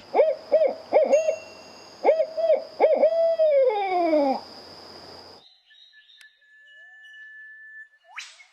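Owl hooting: two quick runs of short hoots, the last one drawn out and falling in pitch. After that, a faint steady whistling tone and a short rising sweep near the end.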